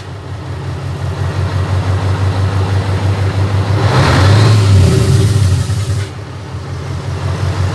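V8 diesel truck engine running with its turbocharger removed, its engine brake in use; the sound swells for a couple of seconds past the midpoint, then drops back.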